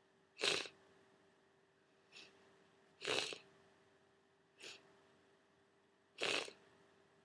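A person with a cold sniffling: five short, sharp sniffs about a second and a half apart, three loud and two fainter.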